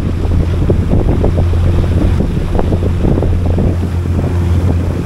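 Small sightseeing boat's engine running with a steady low hum, under heavy wind buffeting on the microphone.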